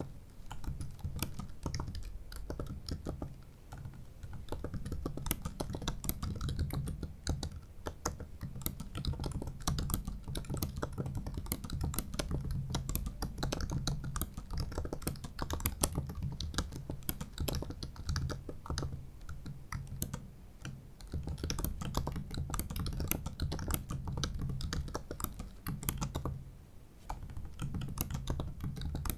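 Continuous typing on a 2017 15-inch MacBook Pro's built-in butterfly keyboard: a quick, dense run of key clicks, with brief lulls about four seconds in, in the middle and shortly before the end.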